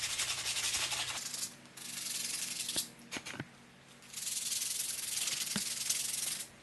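Sandpaper rubbed by hand inside the bowl of a carved wooden spoon, a steady scratchy rasp in three spells of strokes with short pauses between them and a few light clicks in the middle pause.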